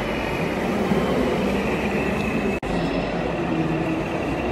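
Steady din of a busy exhibition hall, with a low mechanical hum from radio-controlled model trucks running on the course. The sound cuts out for an instant about two and a half seconds in.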